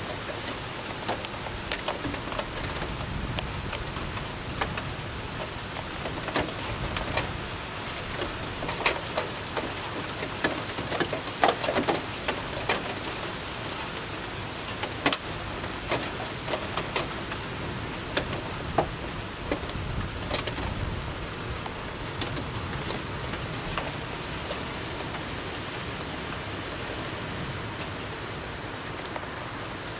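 Steady rain falling, with scattered sharp drops striking close by.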